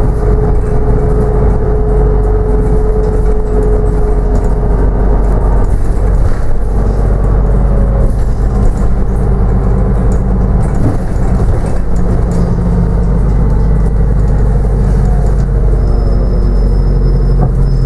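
Interior of a New Routemaster hybrid double-decker bus on the move, heard from the upper deck: a steady drivetrain hum and road rumble, with a thin whine for the first five seconds or so.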